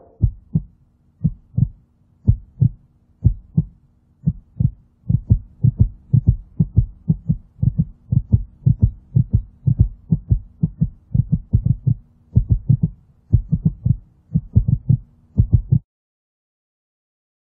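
Heartbeat sound effect: low thumps in pairs, sparse at first, then quickening to about two beats a second over a faint steady hum. The beat breaks off suddenly near the end.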